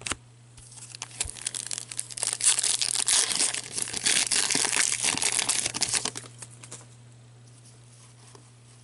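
Foil hockey card pack being torn open and crinkled: dense crackling and tearing that builds about a second in and stops about six seconds in.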